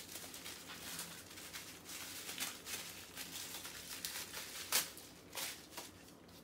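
Bubble wrap and a plastic sleeve rustling and crinkling as a parcel is unwrapped by hand, with a sharper crackle about five seconds in.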